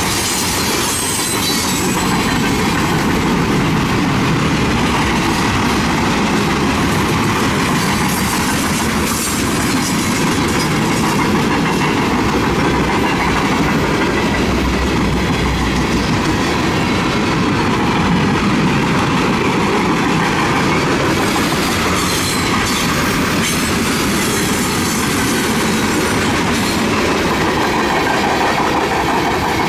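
A long freight train's cars rolling steadily past, with continuous wheel-on-rail noise that holds an even loudness throughout.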